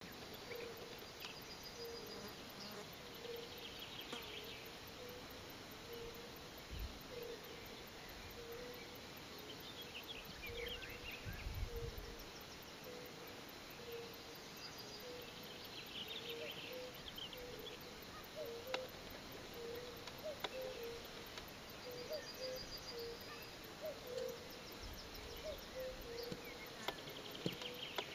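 Faint outdoor ambience: a low note repeating in short pulses throughout, with scattered bird chirps and trills higher up and a few brief low rumbles.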